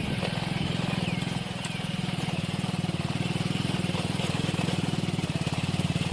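Hero HF Deluxe motorcycle's small single-cylinder four-stroke engine running steadily, with an even, rapid firing beat.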